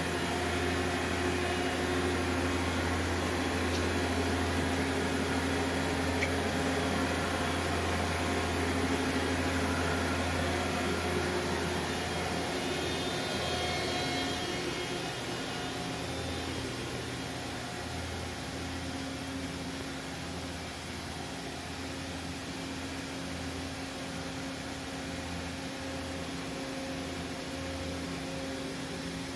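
Steady hum of a powered-up 2000 Okuma MX55VA vertical machining centre standing idle, not cutting: a low electrical and fan drone with a few steady tones over it. It drops slightly in level about halfway through.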